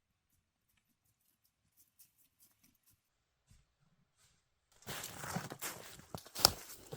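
Crunching and rustling noise that starts about five seconds in, with one sharp knock just before the end.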